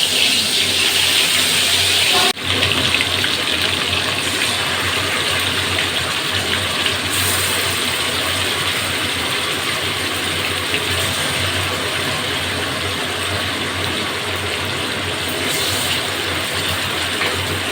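Marinated chicken pieces frying in hot oil and ghee in a kadai: a steady, loud sizzle, with a brief break about two seconds in.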